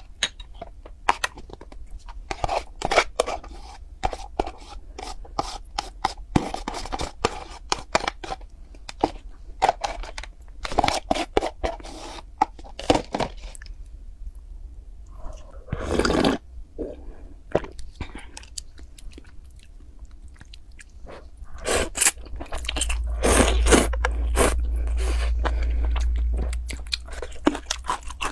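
Close-miked eating sounds: repeated chewing with crisp crunches and mouth clicks, plus one longer noisy sound about halfway through.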